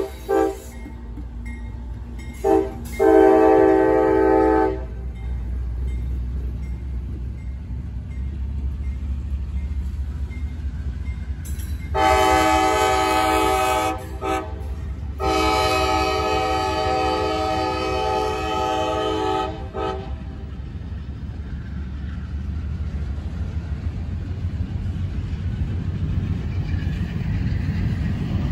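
Freight train cars rolling past close by with a steady low rumble. Over it a diesel locomotive horn sounds in several blasts: one ends just after the start, a short and a longer blast follow a few seconds in, then two long blasts from about twelve to twenty seconds in.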